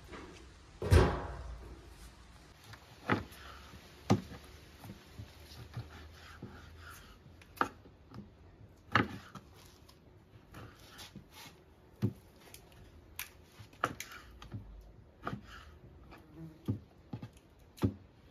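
A flat metal lid is set down over a clay tandoor pit with one loud knock about a second in. Then a kitchen knife cuts raw sheep meat on a wooden board, knocking on the board about every one to two seconds, some strikes louder than others.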